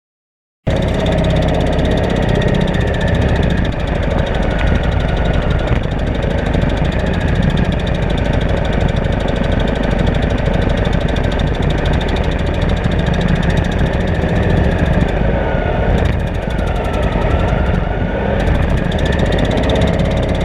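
Off-road race vehicle's engine running steadily, with a wavering pitch that dips and rises near the end. It cuts in abruptly under a second in.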